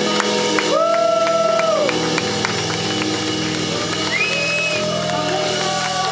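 Live electronic pop music with steady, sustained synth chords and a long held note, and a few shouts from the audience over it.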